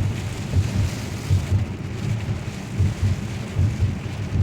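Heavy rain pounding on a moving car, with a low thump repeating about every three quarters of a second.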